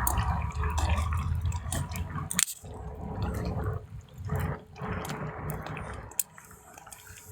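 Rain dripping and pattering, with many scattered sharp ticks, louder in the first half and fading toward the end.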